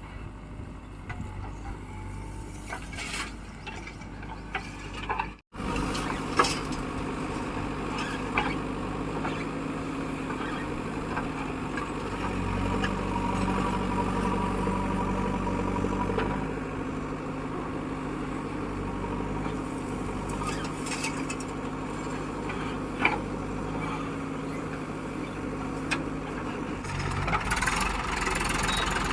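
Diesel engine of a JCB 3DX backhoe loader working while it digs and loads soil, its note rising under load for a few seconds in the middle, with a few sharp metal clanks. The sound cuts out for an instant about five seconds in.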